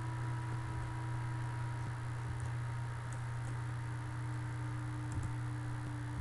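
Steady low electrical hum of the recording setup, with a few faint computer mouse clicks, two of them close together about five seconds in.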